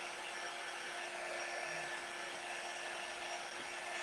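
Small handheld electric dryer running steadily, a constant rush of blown air over a steady motor hum, drying freshly applied chalk paste on a wooden board.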